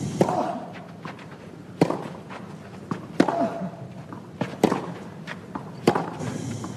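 Tennis rally on a clay court: the ball is struck back and forth by racquets, five sharp hits about a second and a half apart.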